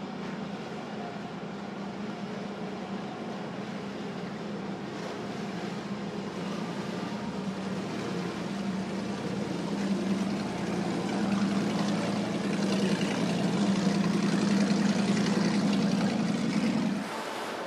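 Motorboat engine running, a steady low hum with water and hull noise that grows louder through the second half and stops abruptly near the end.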